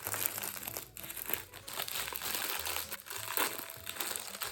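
Crinkly wafer-cookie packaging being handled, with irregular rustling and crackling throughout.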